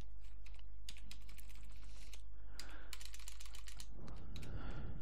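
Computer keyboard keys tapped in several short, quick runs while text is deleted and edited, over a steady low hum.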